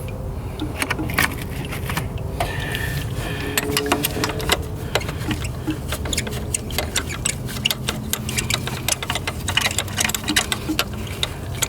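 Ratchet wrench clicking in quick, uneven runs as a thermostat housing bolt is backed out on a Dodge Journey 2.4 engine.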